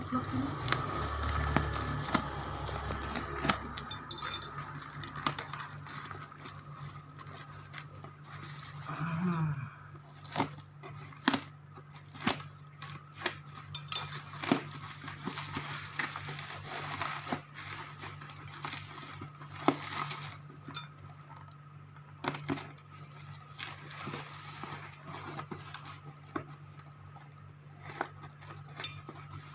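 Unpacking a parcel holding a glass bottle: rustling and crackling of packaging at first, then irregular clinks and knocks as the bottle and packing are handled.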